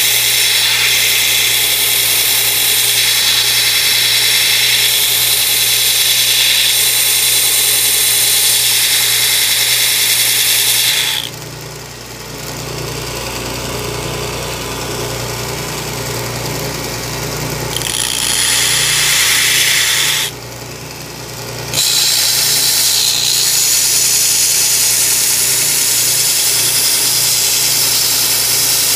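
Grizzly G1015 2x72 belt grinder grinding metal: a loud, steady abrasive hiss of the belt cutting the workpiece over the motor's steady hum. About eleven seconds in the work comes off the belt and only the machine runs, quieter. Grinding resumes near eighteen seconds, pauses briefly near twenty seconds, then continues to the end.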